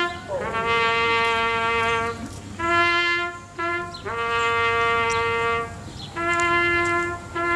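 Solo trumpet playing a slow, solemn call of long held notes on two pitches a fourth apart, the higher notes held about a second and a half, the lower ones shorter, with brief breaths between.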